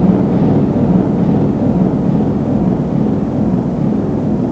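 A loud, steady, deep rumble that eases off slightly toward the end.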